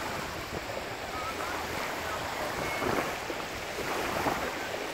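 Small waves lapping and washing on a lake shore, a steady wash of water noise, with wind buffeting the microphone.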